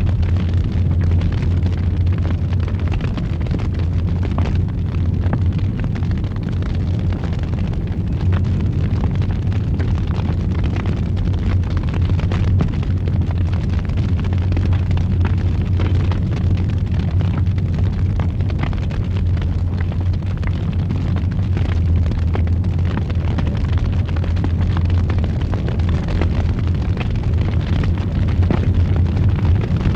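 Fire burning in a fireplace with a steady low roar and frequent small crackles and pops.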